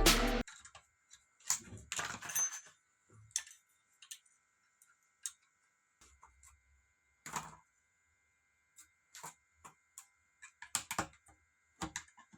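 Sparse light clicks and taps of small parts being handled, irregular and spaced out, over a faint steady high hum.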